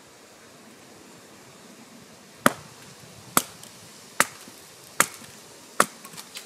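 Batoning: a wooden baton knocking on the spine of an Ed Martin MK7 bushcraft knife whose blade is set against an upright stick. Five sharp knocks about 0.8 s apart begin about two and a half seconds in, followed by a few lighter taps near the end.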